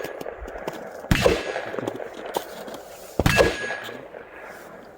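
Two loud gunshots from other shooters at the range, about two seconds apart, each followed by a long ringing, echoing tail.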